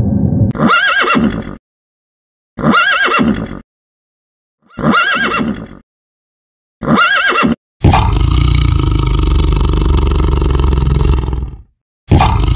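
A horse whinnying four times, each call about a second long with silent gaps between, the pitch rising and falling within each call. Then comes a few seconds of loud, steady rushing noise that cuts off, and it starts again near the end.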